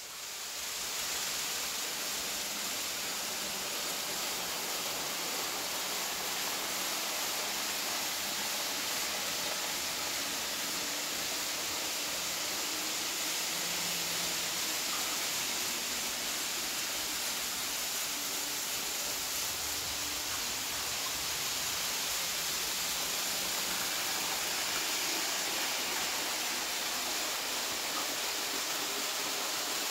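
Model railway trains running around a layout, a little too fast, making a steady rushing hiss that comes up sharply at the start and holds even.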